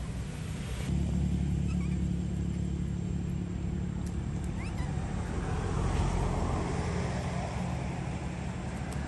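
A motor running with a steady low hum. In the second half, faint high squeaks from baby long-tailed macaques.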